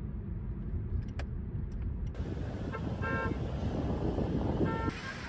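Road traffic noise with a car horn tooting twice, two short steady toots about a second and a half apart. Before the horn there is a low rumble of car road noise.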